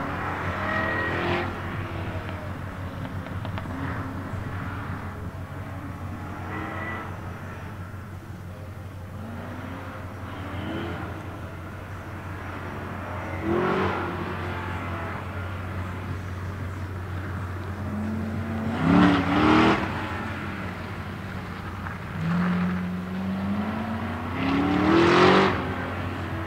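Chevrolet Corvette Z06 V8 engine pulling hard in repeated bursts and lifting between them, its pitch rising with each pull; the loudest pulls come in the second half.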